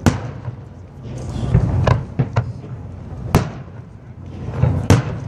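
Fireworks shells bursting overhead: sharp bangs every second or so, a few in quick succession, over a low rolling rumble.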